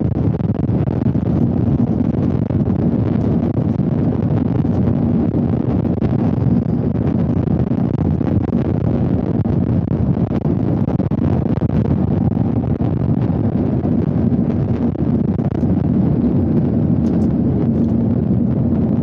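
Airliner's jet engines at take-off power heard from inside the cabin: a loud, steady rushing noise with a low hum, as the plane rolls down the runway and lifts off.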